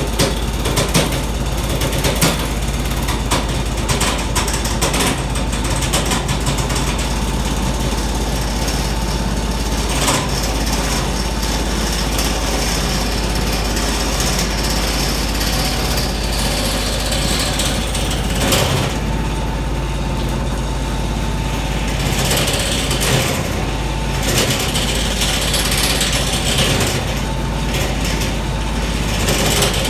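Mophorn benchtop wood lathe running with a turning tool cutting into the spinning wood: a steady motor hum under a dense, rapid clatter and scraping of the cut.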